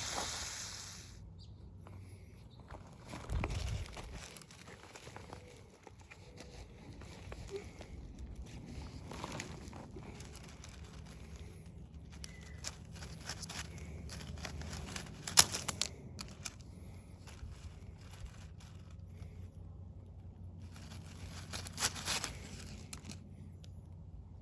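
Hands working with plastic drip-irrigation tubing and 4-gallon emitters: irregular rustling and crinkling with scattered sharp clicks, the sharpest about halfway through, and a low thump near the start.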